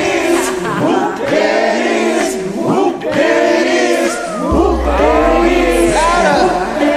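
A group of many voices singing together over a karaoke backing track, overlapping with sliding notes and ad-libs. A deep bass comes in about four and a half seconds in.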